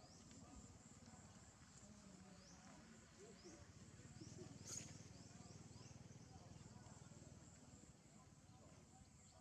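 Near silence: faint outdoor ambience with a low rumble, a few faint high chirps, and one sharp click a little under five seconds in.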